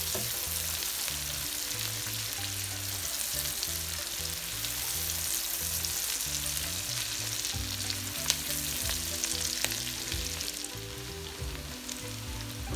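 Sliced onions sizzling steadily as they fry in oil in a nonstick wok, turning light brown, with a silicone spatula stirring through them and giving the odd click against the pan.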